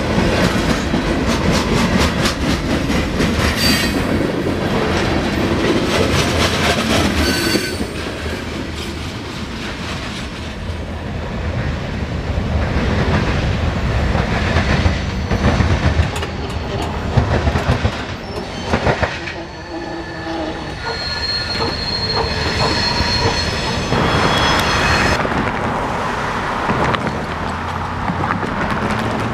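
Freight train of covered hoppers and gondolas rolling over a grade crossing, its wheels clattering rapidly over the rail joints, then dropping away as the last cars pass about eight seconds in. A thin high squeal comes about twenty seconds in.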